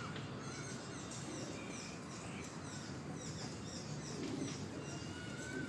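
Birds chirping: a rapid run of short falling chirps, with a longer whistled note near the end, over a low steady outdoor background.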